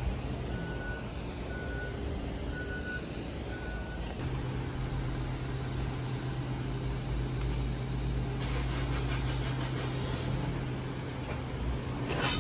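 Vehicle reversing alarm beeping about once a second for the first few seconds, over steady machinery noise; a steady low hum comes in about four seconds in.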